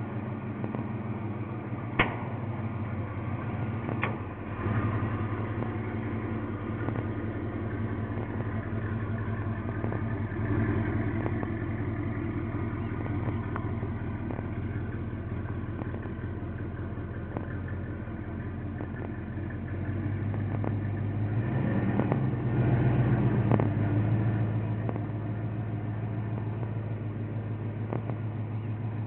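A 1992 GMC Sonoma's 355 small-block V8 idling steadily through its exhaust. There is a sharp click about two seconds in, and the engine grows louder for a few seconds past the two-thirds mark.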